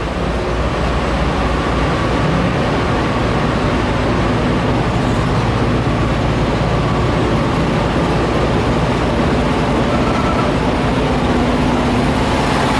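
Steady drone of idling diesel engines from parked semi trucks, with a constant low rumble and a few held tones.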